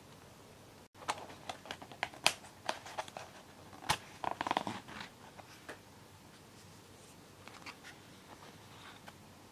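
Hands handling and opening a takeaway food box: a run of sharp taps and clicks, then a short scratchy crackle as the lid comes open, then a few faint ticks.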